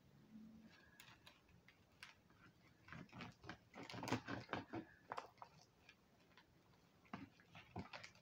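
Knife and fingers cutting and tearing the crisp fried skin of a whole guinea pig on a plate: scattered small crunchy cracks and clicks, thickest a few seconds in and again near the end.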